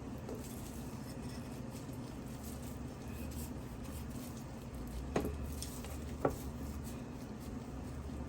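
Quiet kitchen handling as a roasted breadfruit is peeled: faint scraping and rustling, with two sharp clicks about a second apart, over a steady low hum.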